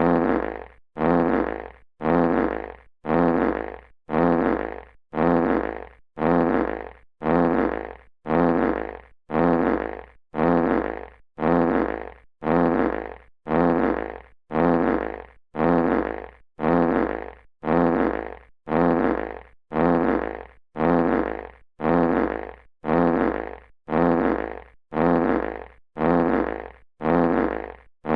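A classic fart sound effect looped over and over, about once a second. Each fart starts loud and fades out, with a short gap before the next.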